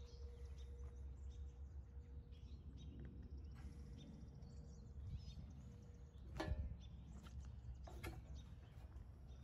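Quiet outdoor background: a steady low rumble with faint chirps, broken by a sharp metallic-sounding knock about six and a half seconds in and a lighter one near eight seconds.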